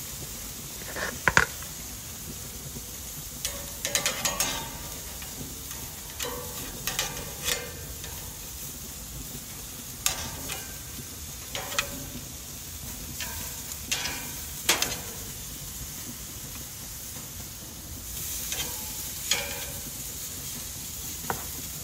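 Tomahawk steak and lamb chops sizzling on a gas grill's grates in a steady hiss, with metal tongs clicking and scraping against the grate every second or two as the meat is turned.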